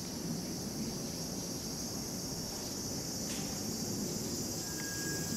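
Insects chirring steadily in a continuous high-pitched drone, over a low background rumble; a single click about three seconds in.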